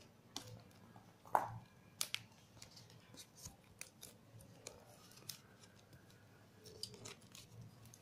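Hands pressing and smoothing shiny plastic tape along the paper-covered edge of a cardboard box: scattered crinkles, taps and clicks, the loudest just over a second in.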